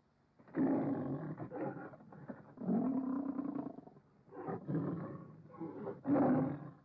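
Lion roaring on the MGM logo's soundtrack: four rough roars about a second apart, starting half a second in.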